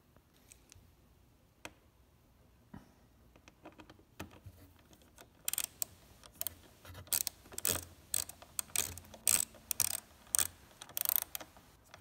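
A Torx driver turning a screw to fasten a switch cover on the motorcycle fairing. Scattered faint clicks at first, then from about halfway a busy run of sharp, irregular clicks from the driver.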